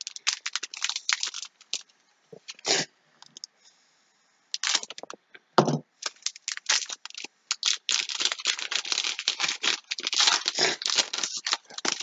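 Foil wrapper of a Score football trading card pack crinkling and tearing as it is peeled open at its crimped seal: a dense run of crackles, a lull of about two seconds, then steady crinkling again.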